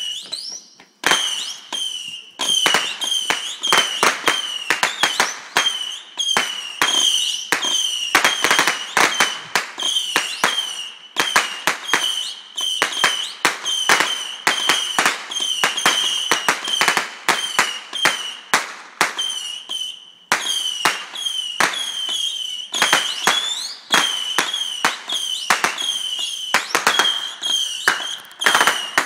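A 300-shot Saturn missile battery firing in quick succession: each small rocket goes up with a short whistle and ends in a sharp crack, one after another without let-up, with a brief pause about two-thirds of the way through.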